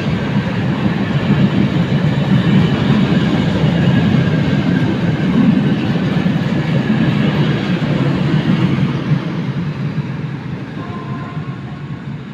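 Freight train of Eaos open coal wagons rolling past, a steady rumble of wheels on rail with some clickety-clack. It fades over the last few seconds as the end of the train goes by.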